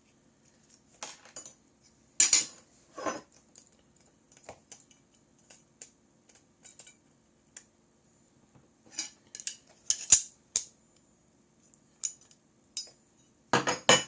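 Irregular light clicks and knocks of small hard phone parts, the screen assembly and its frame, being handled and set down on a bench, with a cluster of sharper knocks near the end.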